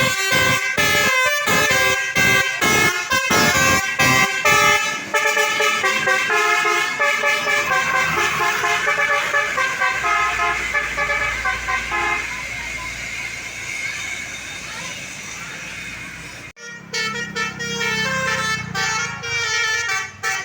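Tourist bus's 'telolet' basuri multi-tone horn playing a melody. It starts as a quick run of short, pulsed notes, then holds longer chords that slowly fade. The sound breaks off about 16 seconds in, and more horn notes follow near the end.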